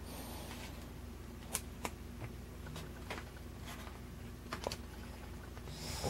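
Small metal clicks and taps, about six scattered through a few seconds, as a brass padlock cylinder is handled and worked at with a small tool.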